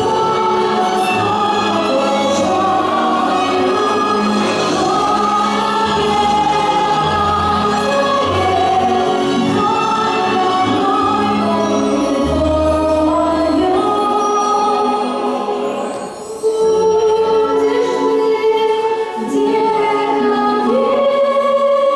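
A choir singing with accompaniment, ending on a long held chord.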